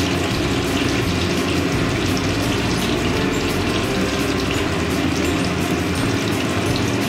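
Rohu fish steaks sizzling steadily as they shallow-fry in hot oil in a kadai.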